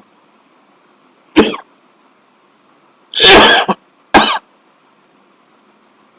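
A person coughing: one short cough about a second and a half in, then a longer cough followed closely by another near the middle.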